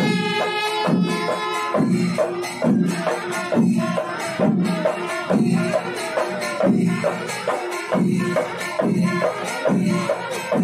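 Kerala temple-festival percussion ensemble (melam) playing: drums beat a slow, steady pulse about every second with metal cymbals clashing between the strokes. A held chord from horns sounds at the start and breaks off about two seconds in.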